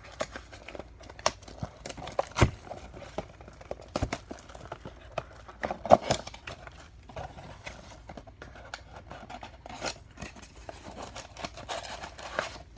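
Plastic shrink wrap being torn off a cardboard trading-card blaster box and crinkled by hand, with the box and its foil card packs handled: a steady run of crackles and small clicks, with sharper knocks about two and a half and six seconds in.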